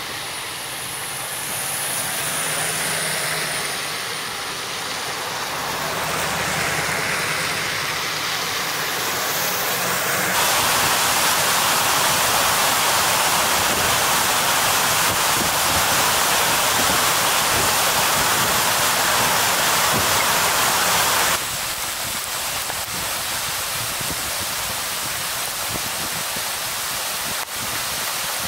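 Floodwater rushing through a rocky creek in spate: a loud, steady rush of water that starts abruptly about ten seconds in and stops abruptly about eleven seconds later. Before it comes an uneven outdoor noise with a low hum that swells and fades. After it comes a steadier, quieter hiss of water.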